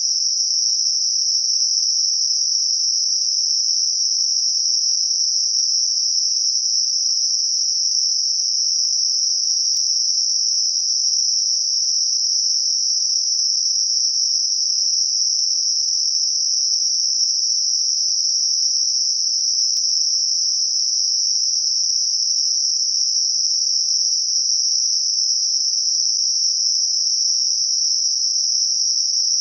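Gaussian narrowband noise centred on 5.5 kHz: a steady, high-pitched hiss that never changes, generated as a masker for high-frequency tinnitus.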